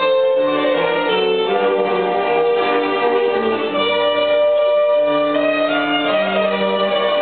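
Small string ensemble of violins and cello playing live, several parts in bowed, held notes that change about once a second.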